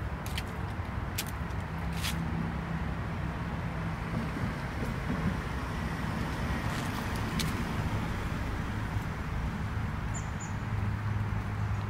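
Steady low rumble of road traffic, with a few sharp clicks in the first two seconds and again about seven seconds in.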